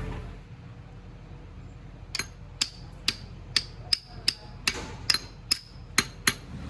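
Hammer blows on metal gearbox parts: about a dozen sharp, ringing strikes, roughly two a second, starting about two seconds in.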